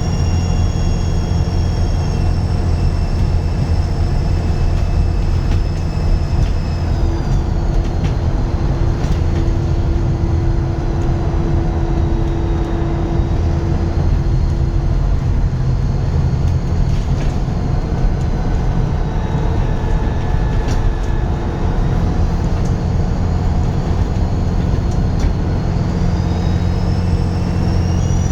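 Dennis Trident 2 double-decker bus engine running under a loud turbo whistle. The whistle glides down in pitch over the first several seconds, holds lower, then rises again near the end.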